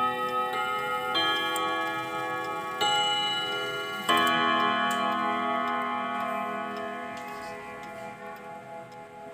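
ODO wall clock's chime rods struck by brass-headed hammers. Several ringing chords come in quick succession, the last and loudest about four seconds in, then ring on and slowly fade.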